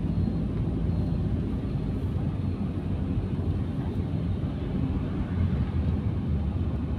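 Steady engine and road noise heard inside a moving car's cabin, a low rumble that runs on evenly.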